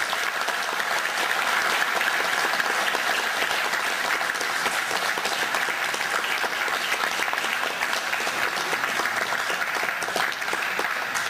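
Audience of a few dozen seated people applauding, a dense, steady clapping.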